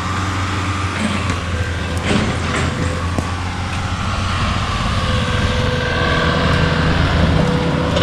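Komatsu PC-40 mini excavator's diesel engine running steadily, with a faint high whine over it and a couple of short knocks a few seconds in.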